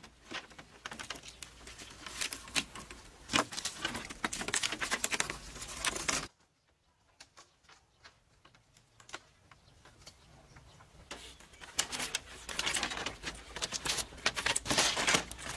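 Bamboo poles and strips clicking, knocking and rustling as they are handled and lashed together, a dense patter of small knocks. It breaks off suddenly about six seconds in, leaving only a few scattered clicks, and picks up again near the end.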